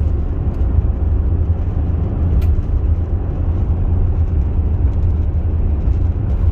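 Steady low road and engine noise inside the cabin of a moving Chevrolet SUV, with one sharp click about two and a half seconds in.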